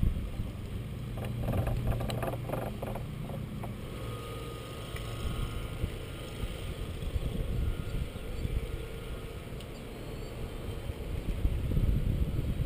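Wind buffeting the microphone in a steady low rumble, with a run of knocks and clicks about one to four seconds in and a faint steady hum in the middle.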